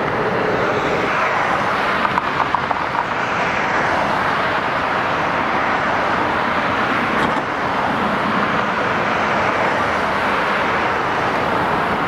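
Road traffic noise: a steady wash of passing cars, swelling and easing as vehicles go by, with a few light clicks about two seconds in.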